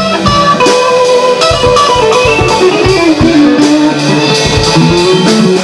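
Electric guitar picked in a moving melodic line, with notes stepping up and down in pitch.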